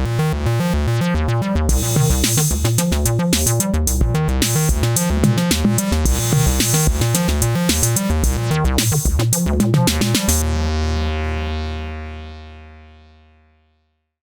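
Acid bass pattern with a drum machine beat playing from an Elektron groovebox. The pattern stops about ten seconds in, and a final low held note rings on and fades out over a few seconds.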